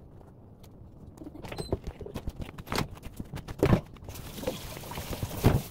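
Handling noises at a kitchen counter: banana leaves and a towel rustling and patting, then a microfibre cloth rubbing over a clear plastic container, with scattered light clicks and a couple of louder knocks.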